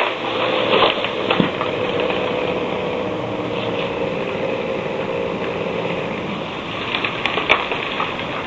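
An engine running steadily, with a few short sharp knocks about seven seconds in.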